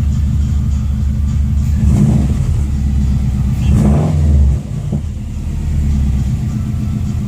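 2002 Subaru WRX's turbocharged 2.0-litre flat-four engine running warm and idling steadily, the way it is supposed to run, with a couple of short rises in engine speed about two and four seconds in that settle back down.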